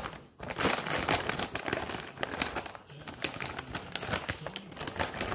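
Close-up eating sounds: chewing and sucking on chicken feet, heard as a dense run of clicks and crackles.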